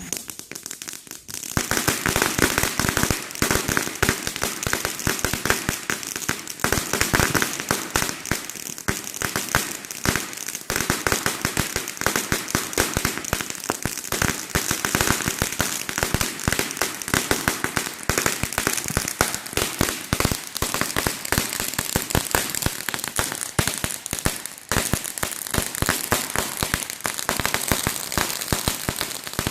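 Firecrackers going off in a dense, unbroken crackle of rapid sharp pops, many a second, which starts about a second in.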